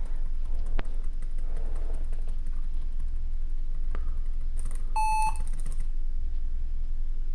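Lenovo ThinkPad T430 laptop giving one short, steady beep as it is powered on, about five seconds in. A few faint clicks come before it.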